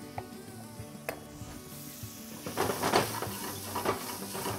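Red onions, peppers and capers sizzling in oil in a hot frying pan, the sizzle flaring up louder and crackling about two and a half seconds in and again near the end. A couple of sharp knocks in the first second.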